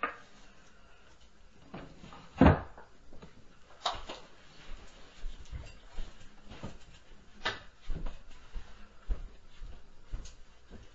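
Irregular heavy thuds and knocks, the loudest a deep thud about two and a half seconds in, with sharper knocks near four and seven and a half seconds. The recorder takes them for the upstairs neighbors stomping.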